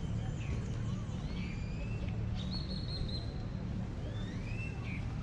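Birds chirping and whistling, several short rising and falling calls and one longer held whistle, over a steady low rumble of city traffic.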